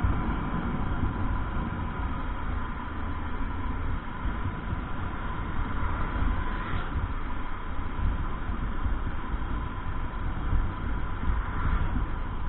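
Honda RS150R's single-cylinder engine running steadily while the bike is ridden, under heavy wind rumble on the microphone.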